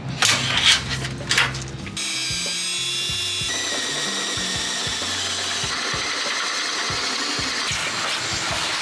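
A handheld power drill runs, boring a hole through the sheet-metal radiator core support. It is followed by the steady rushing of a shop vacuum clearing up the chips. A few light clicks from handling a tape measure and marker come in the first two seconds.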